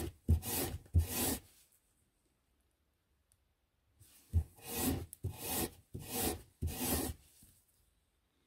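A square metal clutch block from a 1924 Bugatti Brescia rubbed back and forth by hand on a maroon abrasive pad. Two scrubbing strokes come at the start, then a pause of a couple of seconds, then about five more strokes, each starting with a light knock as the block is set down on the pad.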